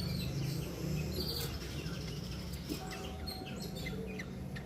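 Pet budgerigars chirping and twittering in short scattered calls over a steady low hum.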